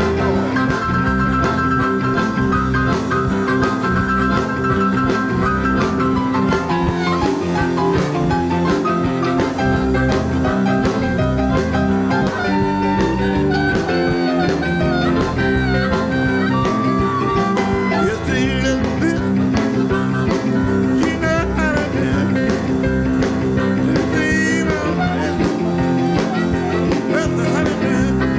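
Live electric blues band playing an instrumental stretch: guitar, bass and drums over a steady beat.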